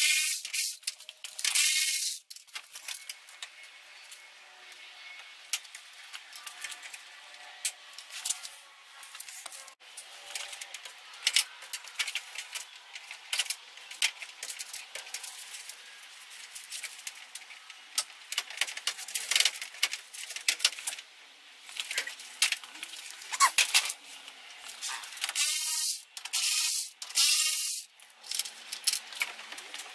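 Plastic-and-chrome front grille of a 2010 Ram 2500 being worked loose from its snap clips and lifted off by hand: irregular clicks, rattles and scraping, louder near the start and again near the end.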